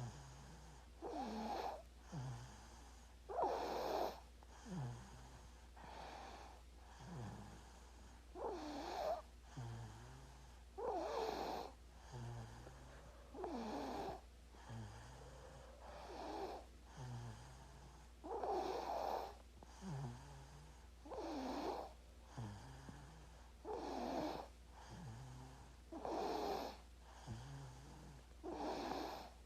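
Sleeping baby snoring, a rasping snore with each breath, the stronger ones coming about every two and a half seconds.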